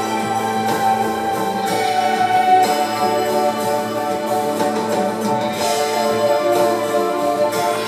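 Instrumental music from the TV episode's score playing, with held notes sustained throughout.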